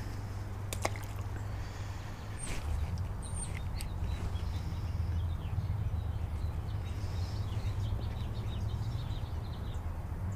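Outdoor ambience: a steady low rumble with a few short, high bird chirps and a couple of light clicks near the start.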